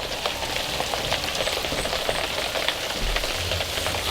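Steady rain falling, a dense hiss full of small drop ticks, with a brief low rumble about three seconds in.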